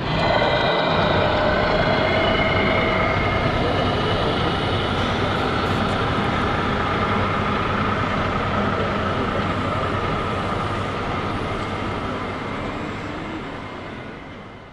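Steady mechanical running noise with a few held whining tones, fading out near the end.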